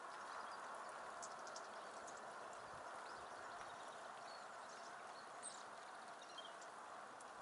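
Faint, scattered high chirps and twitters of European goldfinches over a steady background hiss.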